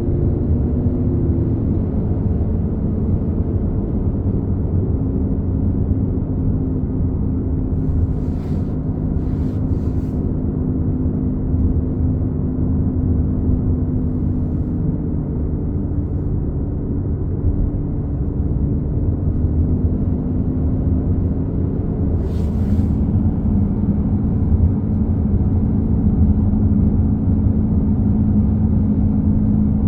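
2015 Honda CR-V Touring running along with a loud humming noise from the rear: a steady low drone over road rumble. A few short clicks come about eight to ten seconds in and again about 22 seconds in.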